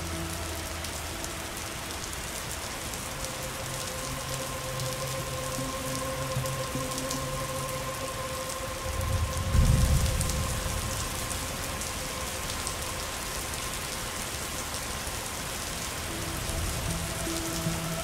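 Steady rain falling on a surface, with soft held music tones under it. A low rumble of thunder swells and fades about ten seconds in.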